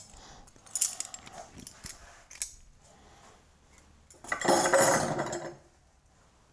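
Steel hand tools, auger bits and a brace, clinking lightly as they are handled, then a louder scraping rattle lasting about a second, from about four seconds in, as tools are moved on a wooden wall shelf.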